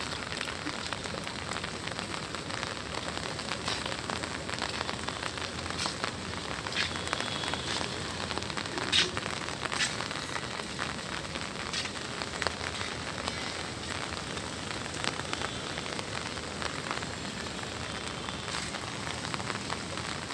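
Light rain falling on a tiled rooftop: an even, steady hiss with a few scattered sharp ticks of drops, the most distinct about nine seconds in.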